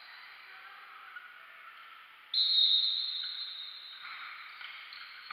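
Referee's whistle blown once: a sudden shrill blast about two seconds in that fades over the following second or two, signalling the restart of play.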